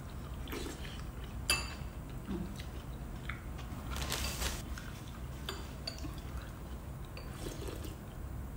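Quiet eating sounds: hotpot soup sipped and chewed from metal spoons, with spoons clinking against ceramic bowls. The sharpest clink is about one and a half seconds in, and a longer slurp comes around four seconds in.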